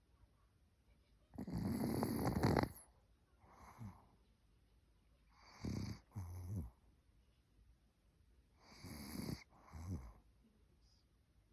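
Elderly Maltese dog snoring in its sleep: six noisy snoring breaths in three in-and-out pairs, the longest and loudest about two seconds in.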